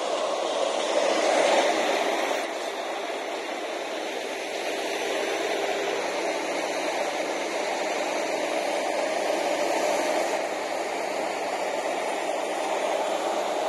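Vögele Super 1800-3 asphalt paver's diesel engine running steadily under a hissing noise while it lays the road surface, a little louder about a second and a half in.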